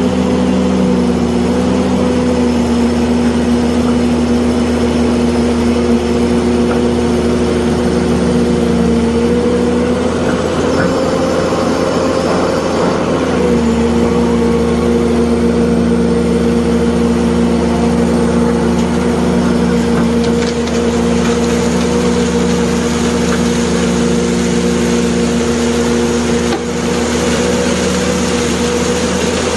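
Heavy diesel engine of excavation machinery running steadily. Its pitch rises a little about ten seconds in and drops back a few seconds later, as the engine takes on load.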